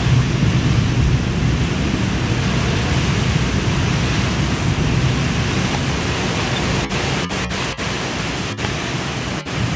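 Strong wind blowing hard, with a rough low rumble of wind buffeting the microphone over a steady rushing hiss. Several brief dropouts in the sound come in the last few seconds.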